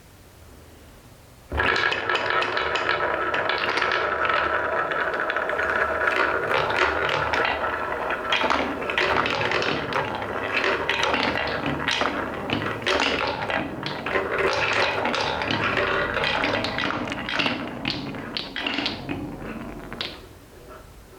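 Many wooden balls rolling and clattering down a wooden marble-run track. The clatter starts suddenly about a second and a half in and thins to scattered clicks near the end.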